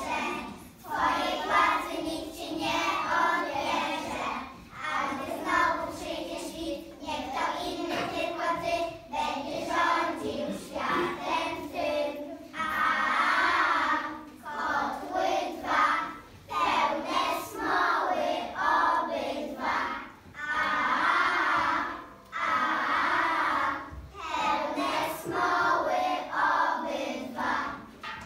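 A group of children singing a song together, in phrases of a second or two, stopping at the very end.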